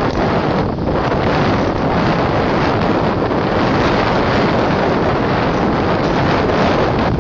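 Loud, steady wind rush buffeting the microphone of a camera moving downhill along a road, with no engine tone standing out.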